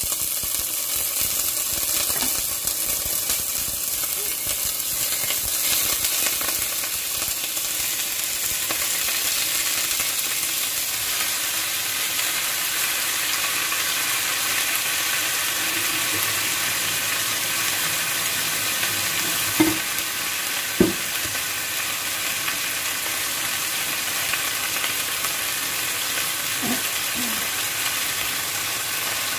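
Chunks of raw beef searing in hot oil in an enameled cast-iron casserole: a steady sizzle. Two sharp knocks about twenty seconds in, and a couple of fainter ones later.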